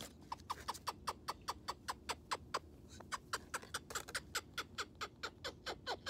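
Moluccan cockatoo making a rapid, even series of short sharp clicks, about five a second.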